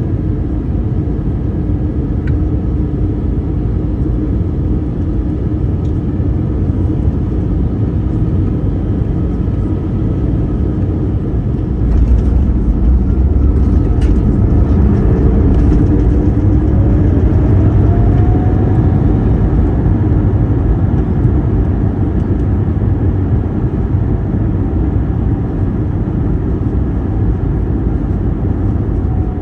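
Cabin roar of an Airbus A321neo landing. About twelve seconds in the low rumble jumps up sharply at touchdown, with a few sharp clicks. A few seconds later an engine whine rises and holds as the engines spool up for reverse thrust on the rollout, then eases near the end.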